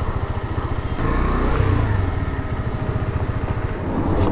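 KTM 390 Adventure's single-cylinder engine running at low revs, a rapid, even pulse of firing strokes that gets a little louder about a second in.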